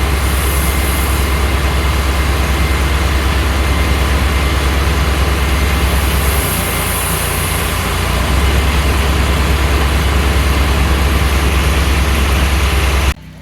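Pressure washer running steadily, its engine humming under the hiss of the wand's spray in a medium-pressure rinse of about 1,000 psi. The sound eases for a moment about six and a half seconds in, then comes back, and cuts off abruptly near the end.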